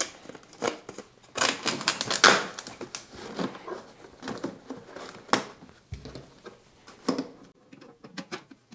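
Hands handling a heater's air outlet pipe and metal clamp: irregular clicks, light metallic clatter and rustling, busiest for about a second near the start, with a sharper click about five seconds in.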